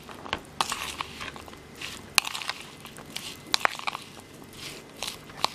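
A metal spoon stirring chopped raw green mango pieces coated in chilli powder and coconut oil in a plastic bowl. Irregular wet squelching and crunching, with sharp clicks of the spoon against the bowl.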